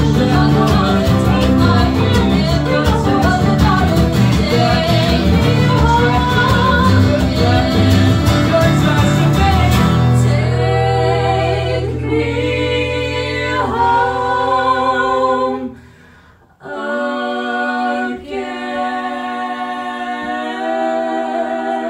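Live acoustic folk band of guitars and mandolin strumming while several voices sing. About ten seconds in, the instruments drop away and the voices hold long notes in harmony, then carry on a cappella after a brief pause.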